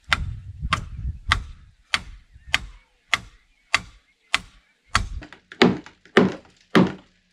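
Repeated blows struck in an even rhythm, about one every 0.6 seconds, each a sharp knock. From about five seconds in they land with a heavier, hollow thunk.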